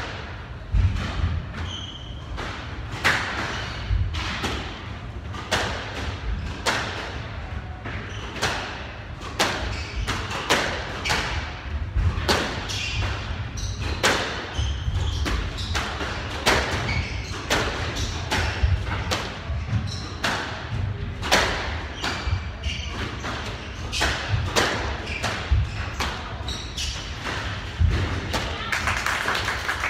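Squash rally: the ball cracks sharply off racquets and the walls about once or twice a second, while the players' footsteps thud on the wooden court floor.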